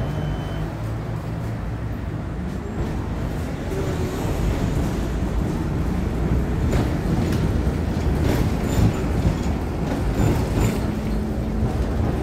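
V3A-93 tram running along the track, heard from inside: a steady rumble of wheels and motors, getting a little louder about four seconds in, with several sharp clicks in the second half and a low steady hum coming in near the end.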